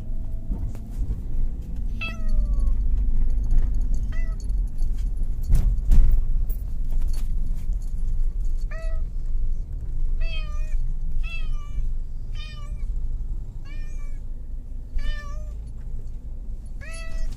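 Cat meowing repeatedly inside a car, about ten short meows, sparse at first and then about one a second in the second half. The car's steady low rumble runs underneath, with a single knock about six seconds in.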